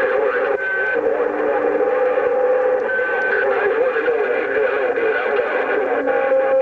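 CB radio receiver audio on a busy channel: several garbled, distorted stations talking over one another, with two short steady whistles, about half a second and three seconds in.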